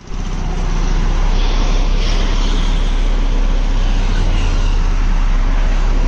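Single-drum road roller's diesel engine running as it rolls over the dirt road bed, a loud steady sound with a deep drone. It fades in over the first second.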